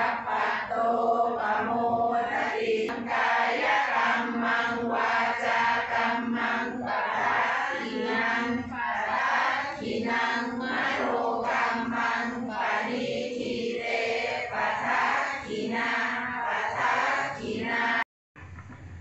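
Group of voices chanting Buddhist verses together in a steady, even recitation. It breaks off abruptly near the end, leaving only quieter sounds.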